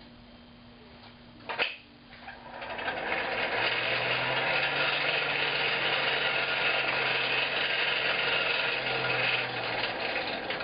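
A small electric motor runs steadily with a low hum and an airy whir, starting about two and a half seconds in and stopping near the end; a single sharp click sounds shortly before it starts.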